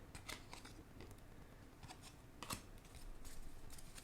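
Faint clicks and slides of baseball cards being handled and flipped through, with one sharper tick about two and a half seconds in.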